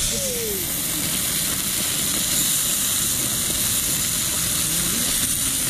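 Pieces of fish frying in a pan over a wood fire, a steady sizzling hiss.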